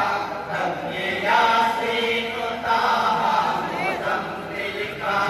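A group of men chanting an Urdu naat (devotional poem in praise of the Prophet) together, amplified through microphones, in long, drawn-out phrases.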